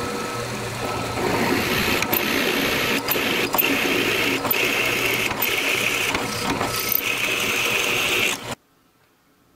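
Drill press boring a twist drill into the end of a steel transmission shift shaft: a steady motor whir with the scraping hiss of the bit cutting and scattered clicks of chips. The cutting grows louder about a second in, and everything cuts off suddenly about a second before the end.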